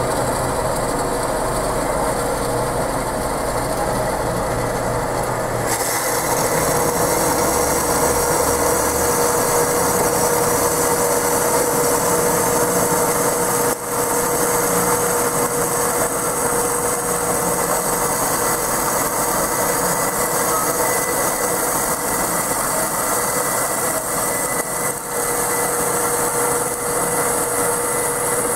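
Roll-In HW1212 12-inch horizontal wet band saw cutting through a solid round steel bar under coolant: a steady rasping hiss over a steady whine from the running machine. A brighter, higher hiss joins about six seconds in.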